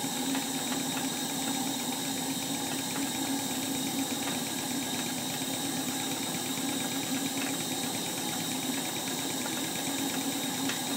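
Stuart 10H single-cylinder horizontal model steam engine running fast on live steam, a steady rapid mechanical beat. It is running on low steam pressure, just after starting and with the steam turned down.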